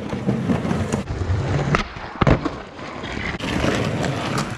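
Skateboard rolling over rough paving, steady wheel noise broken by several sharp clacks of the board hitting the ground, the loudest a little over two seconds in.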